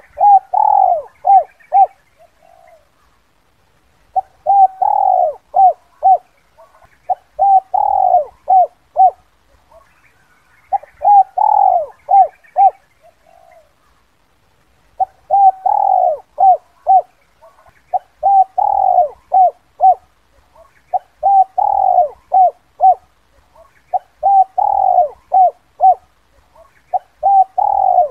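Spotted dove singing its 'kuk 2' coo call: about nine phrases in a row, each a quick run of short coo notes, with brief pauses between them.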